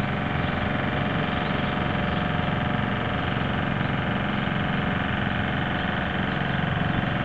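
A steady, unchanging mechanical hum like a running engine, with several held tones.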